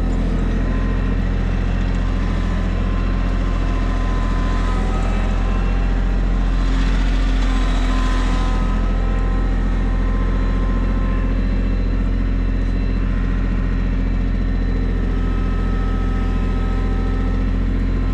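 Tractor engine running steadily under way, a continuous low drone that swells a little about seven seconds in.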